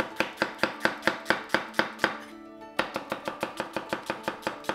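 Chef's knife slicing a red onion on a wooden cutting board. The blade strikes the board steadily about five times a second, pauses briefly about two seconds in, then goes on with lighter, quicker strokes.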